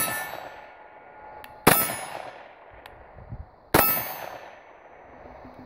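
Two shots from a Walther PPQ 9mm pistol, about two seconds apart, each followed by the ringing clang of a struck steel target dying away.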